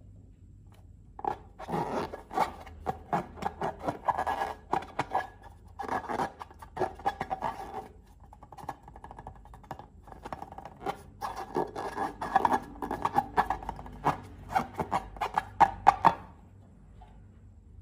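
Glossy slime being squeezed and stretched by hand, a rapid run of sticky clicks and crackling pops in two bouts, with a short lull about halfway through.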